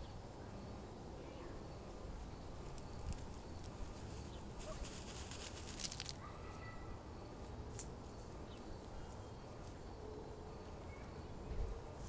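Hens in a dust bath making a few soft, faint clucks over a steady low outdoor rumble, with several short scuffs about halfway through.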